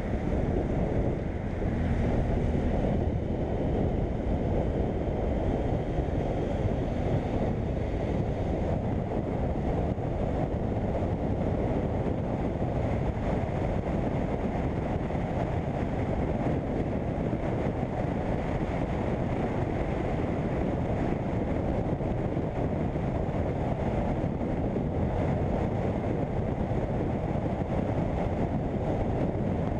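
Steady wind rush over the microphone on a moving BMW F800GS motorcycle, with the bike's running noise underneath. The sound stays even and muffled throughout.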